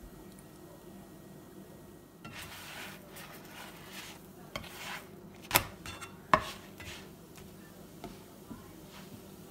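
A black slotted spatula scraping under a naan in a nonstick frying pan and flipping it, with two sharp knocks against the pan about a second apart midway and a few lighter taps afterwards.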